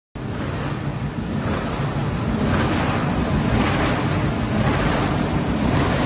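Automatic horizontal waste paper baler running: a steady rushing machine noise with a low hum underneath, with no distinct knocks or strikes.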